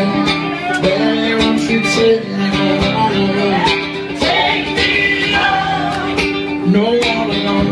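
Live music: a man singing while strumming a nylon-string acoustic guitar, with percussive hits under it.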